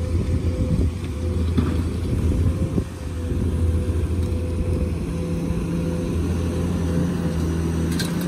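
Komatsu PC210 hydraulic excavator's diesel engine running steadily under digging load, a low hum with a steady whine above it. A second steady tone joins about five seconds in as the arm swings. Near the end comes a short rattle as soil pours from the bucket into the dump truck's bed.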